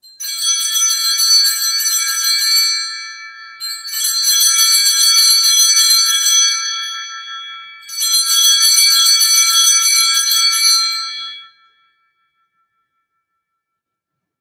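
Altar bells (Sanctus bells) shaken in three peals of about three seconds each, a high, many-toned jingling ring, marking the elevation of the consecrated host at Mass.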